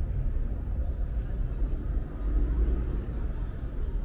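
Steady low rumble of road traffic, cars and buses running along a city street.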